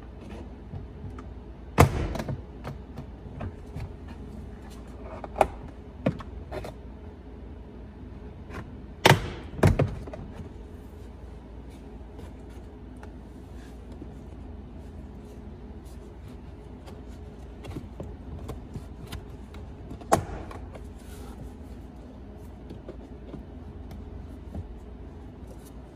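Plastic retaining clips of a 2019 Ram 1500 door trim panel popping loose as the panel is pried off the door with a tape-wrapped pry bar: about half a dozen sharp snaps, the loudest about 2 and 9 seconds in, with quiet working noise between.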